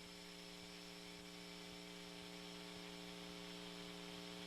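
Faint steady electrical hum over hiss on a recorded broadcast audio line, with no speech, slowly growing a little louder.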